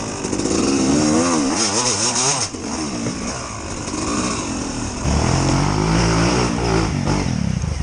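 Off-road motorcycle engine revving hard and unevenly, its pitch wavering quickly up and down as the throttle is worked on the climb. From about five seconds in it settles into a lower, heavier note, then drops away just before the end.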